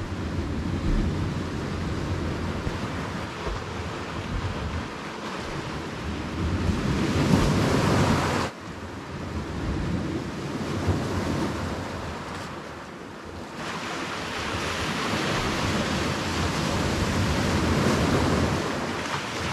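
Sea waves washing with wind buffeting the microphone, surging and easing every few seconds; the sound drops sharply for a moment about eight and a half seconds in.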